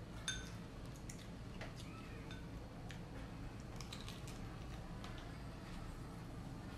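Quiet chewing of crisp fried field rat, with scattered small clicks of chopsticks on a porcelain bowl, over a low steady hum.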